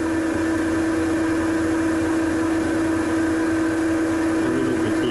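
Weiler Matador lathe running, not cutting, with a steady hum on one constant pitch.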